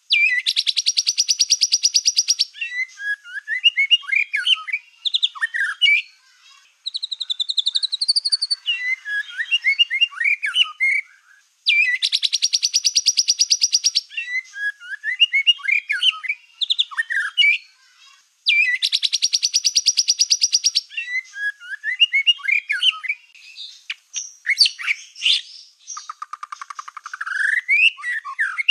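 White-rumped shama of the black-tailed (ekor hitam) form in full song: three long, very fast rattling trills of about two seconds each, with varied short whistles and chattering phrases between them.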